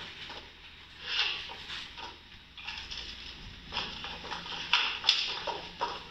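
Footsteps and shuffling of actors hurrying across a wooden stage floor: a string of irregular light knocks with a sharper click about five seconds in, over a steady hiss, as played back through a computer's speakers.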